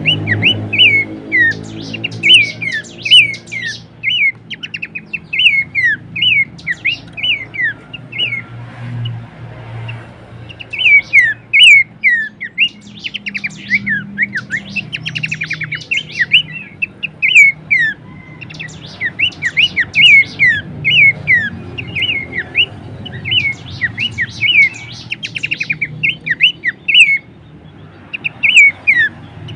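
Pelanduk semak babbler calling: rapid runs of sharp, downslurred chirps in bursts, broken by short pauses, over a steady low hum.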